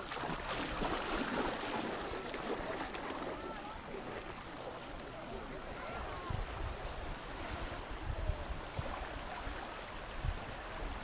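Sea waves washing onto a sandy beach in a steady wash that swells over the first couple of seconds, with wind rumbling on the microphone.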